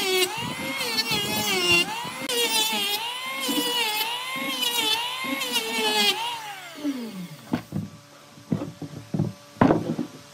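Power tool motor running under load, its pitch repeatedly dipping as it bites into the wood and recovering. About six and a half seconds in, it is switched off and winds down in a falling whine, followed by a few sharp knocks.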